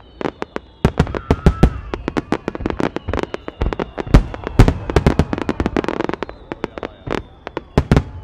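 Aerial fireworks shells bursting in dense volleys during a finale barrage: a rapid, irregular run of sharp bangs, several a second, that thickens about a second in and peaks around the middle.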